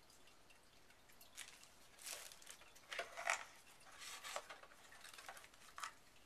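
Faint handling of phone packaging: irregular crinkling and rustling of plastic and cardboard, with small clicks, as accessories are lifted out of the box. It is busiest in the middle.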